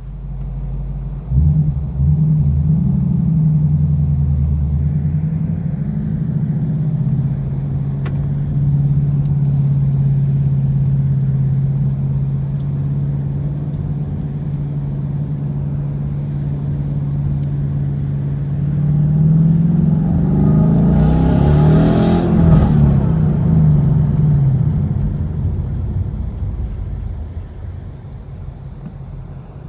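2015 Mustang GT's 5.0 L Coyote V8 running through a Ford Performance Borla exhaust with a low, steady note. Its pitch rises and falls once as it accelerates about two-thirds of the way through.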